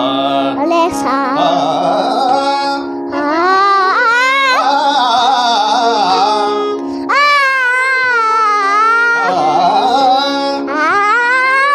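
A singer's wordless Indian classical-style alaap: long held vowels with wavering, ornamented glides between notes, over a steady instrumental drone. A short break about three seconds in and again near seven seconds separates the phrases.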